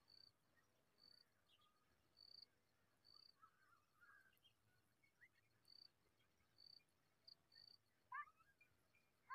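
Faint begging squeaks from songbird nestlings: scattered short rising notes, then a quick run of them about eight seconds in. Behind them a high, short chirp repeats about once a second.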